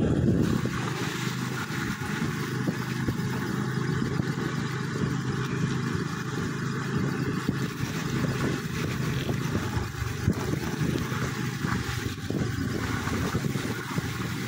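Motorcycle riding on a wet road in the rain: a steady engine hum under a continuous hiss of tyres on water and rain.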